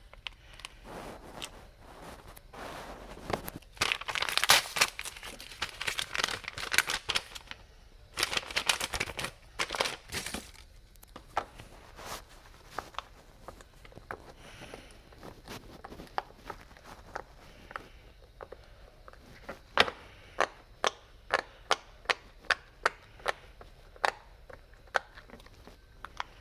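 Packaging crinkling and tearing in bursts as it is unwrapped by hand, followed near the end by a run of sharp clicks, about two a second.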